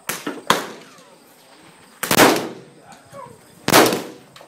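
Gunshots at a shooting range: several sharp reports, the loudest about two seconds in and again near the end, each trailing off in a short echo.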